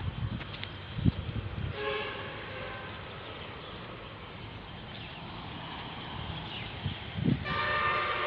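A horn sounds twice: briefly about two seconds in, then held for about a second near the end. Under it there is a steady outdoor hiss and a few low thumps.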